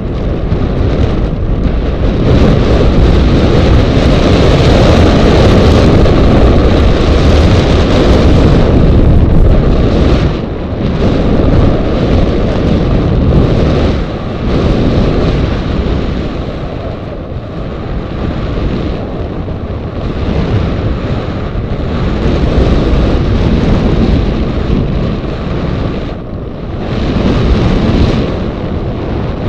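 Loud wind buffeting the microphone of a camera mounted on a hang glider in flight, rushing and easing off several times as the airflow changes.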